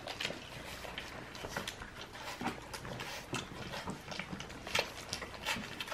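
A litter of young American bully puppies chewing and smacking on raw chicken pieces, a busy irregular run of small clicks and smacks.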